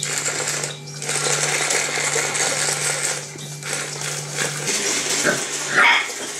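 Small electric motor of a remote-control toy spider whirring as it crawls, cutting out briefly twice and stopping about two-thirds of the way through. Near the end a puppy gives one short, high yelp.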